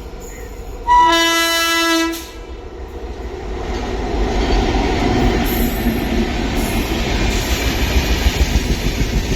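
Telangana Express locomotive horn sounding one blast of just over a second. The passing train's rumble and wheel clatter then build steadily louder as it runs through without stopping.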